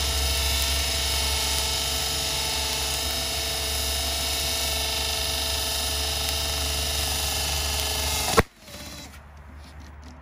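Turbowheel Phaeton electric scooter's back wheel spinning in a burnout, its motor whining steadily. About eight seconds in a sharp pop as the back tyre blows, and the whine cuts off at once.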